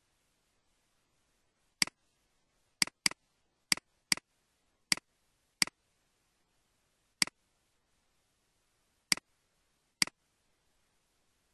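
Computer mouse button clicks, ten in all, spaced irregularly and some in quick pairs. Each is a short double tick of press and release.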